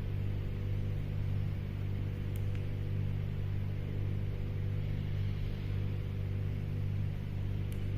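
Steady low electrical hum with a faint hiss, and a couple of faint clicks.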